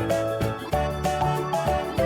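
Upbeat background music, a bouncy tune of quick plucked or mallet-like notes over a steady beat.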